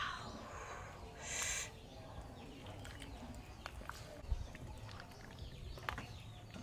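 Outdoor background with a short bird call about a second and a half in, and a few light clicks of a metal ladle against the soup pot and bowl while serving.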